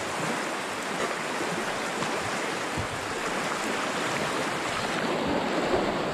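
Fast river water rushing over rocks in a white-water rapid, a steady rushing noise close around a canoe, growing a little louder near the end.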